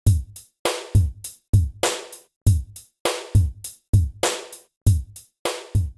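Intro music: a drum beat of deep kick-drum thumps and sharp snare-like hits in a steady, quick rhythm, with almost no melody.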